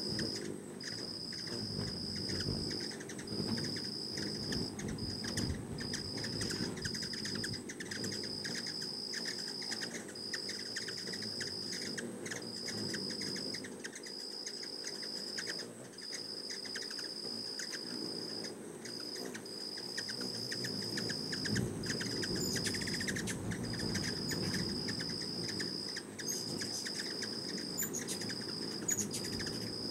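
Hummingbirds hovering close, their wings humming and whirring, with quick high chip notes and a few sharp chirps near the end. Behind them an insect trills steadily on one high pitch, broken by short gaps every second or two.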